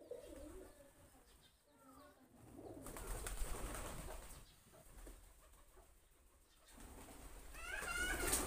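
Feral pigeons cooing low while they feed, with a stretch of rustling noise about three seconds in and higher wavering calls near the end.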